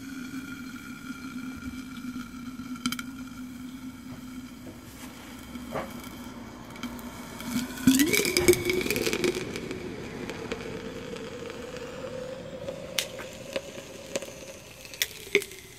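Sodium metal reacting violently with bromine and water in a glass flask. A steady humming tone sinks slightly, then about eight seconds in the reaction erupts in a sudden loud burst, after which a higher tone slowly rises, with a few sharp pops and crackles near the end.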